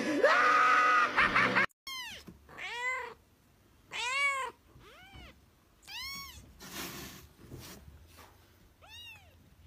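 A woman laughing loudly for the first second or so, cut off sharply. Then a young kitten mewing: a series of short, high mews about a second apart, each rising and falling in pitch.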